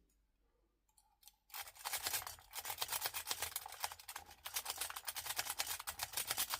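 Lock pick raking the pins of a generic pin-tumbler door lock held in a vise: a fast, dense run of metallic clicking and scraping that starts about a second and a half in.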